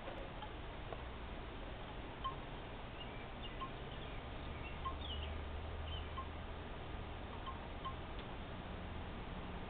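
Quiet outdoor background: short, clear high tones recurring about once a second, a few faint higher chirps, and a low steady rumble.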